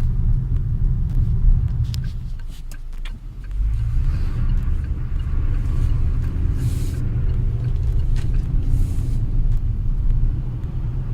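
Geely Atlas driving, with its road and engine rumble steady and low. The rumble drops briefly about three seconds in, then comes back with a short rising engine note.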